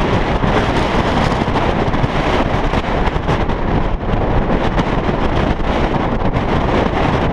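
Wind buffeting an action camera's microphone, a loud, steady, rumbling rush of noise.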